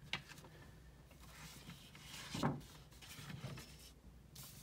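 Faint handling noises at a desk: a sharp click at the start, soft rustling, and a dull knock about two and a half seconds in.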